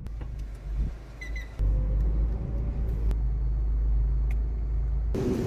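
Steady low rumble of a car driving, which gets louder about a second and a half in and changes abruptly near the end. A short high chirp sounds a little over a second in.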